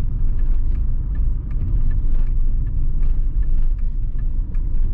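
Car engine and road rumble heard from inside the cabin, a steady low drone while driving slowly.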